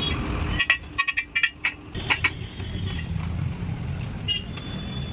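A quick run of sharp metallic clinks about a second in, over a steady low rumble.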